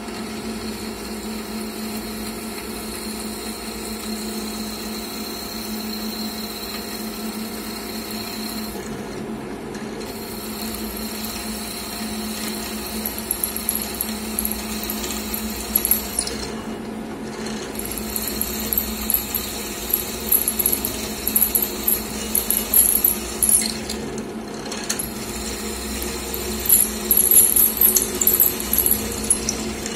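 Cormak Z5020 Vario 1100 W drill press running with a steady motor hum while its twist drill bores into an aluminium block. From about halfway through, the cutting grows louder, with irregular high-pitched bursts and a few short lulls as the bit is fed down by hand.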